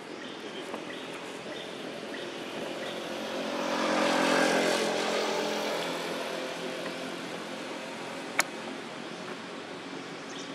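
A motor vehicle passing on a road: its engine and tyre noise builds, is loudest about four seconds in, then fades away. A single sharp click comes near the end.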